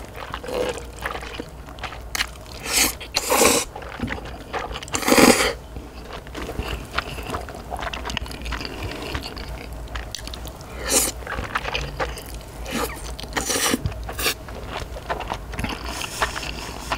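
Close-miked eating of wide, sauce-coated stir-fried noodles: several short wet slurps, the loudest about three and five seconds in, with chewing and small mouth sounds between.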